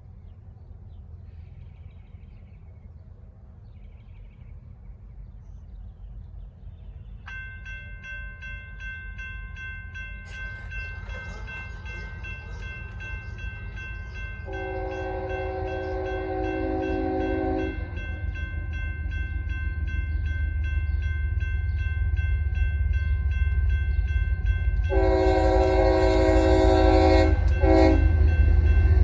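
Railroad crossing bells start ringing about seven seconds in as the signals activate, over the rumble of an approaching freight train that grows steadily louder. The lead locomotive, a GE ES44AC, sounds its air horn: one long blast in the middle, then another long blast and a short one near the end, the start of the grade-crossing horn signal.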